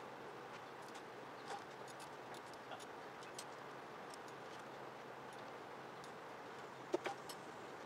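Scattered small clicks and clinks of metal parts and tools being handled as a motorcycle's front forks are fitted, over a faint steady hiss. A few sharper knocks come about seven seconds in.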